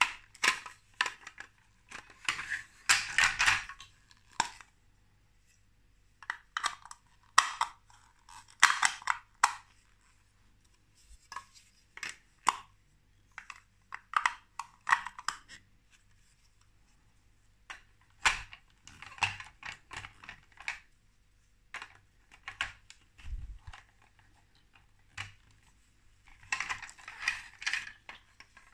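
Large plastic Lego bricks being handled and pressed together: bursts of hard plastic clicking and clattering, separated by short pauses.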